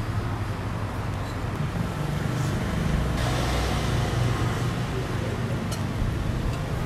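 Steady low rumble of nearby road traffic, growing louder about three seconds in.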